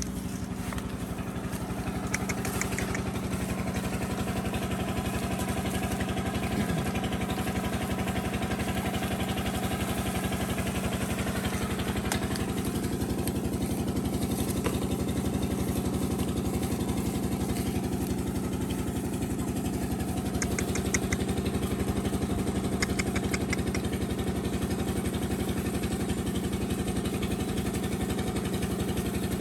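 A small engine idling steadily at an even pitch, with no revving.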